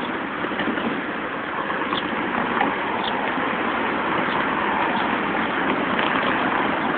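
Steady traffic noise, with a few faint short high chirps.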